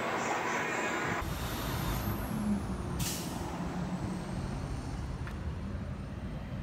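Loud diesel engine noise close up for about the first second. It cuts off suddenly into a steady low truck rumble, with a short hiss of released air, like an air brake, about three seconds in.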